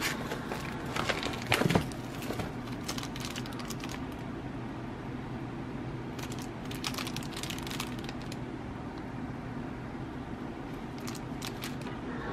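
Plastic packaging and bubble wrap crinkling and crackling as they are handled, with small clicks and taps. The crackling comes in bunches: busiest in the first two seconds, again around seven seconds in and near the end.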